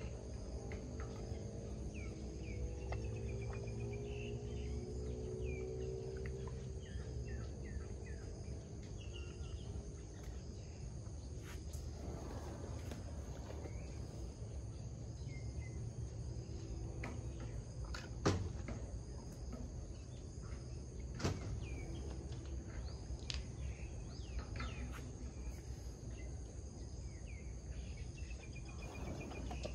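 Steady high insect drone with scattered bird chirps over a low hum. Two sharp knocks come about eighteen and twenty-one seconds in.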